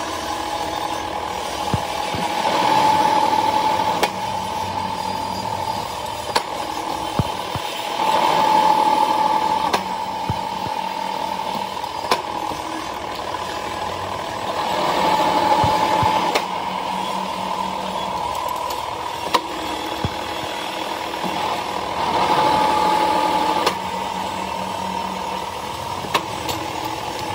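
Factory machinery working in a repeating cycle: about every six to seven seconds a louder surge of whirring with a steady whine rises over the running background for a second or two, with scattered sharp clicks in between.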